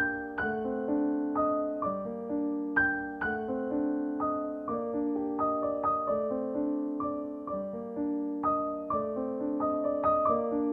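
Background piano music: a slow, gentle melody of single struck notes and chords, each ringing out and fading.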